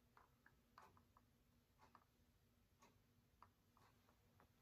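Near silence: room tone with a few faint, irregular ticks.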